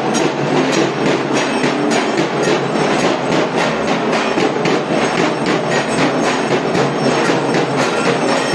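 Dhak, the large Bengali barrel drums of Durga Puja, being beaten with sticks in a loud, fast, steady rhythm, several strokes a second.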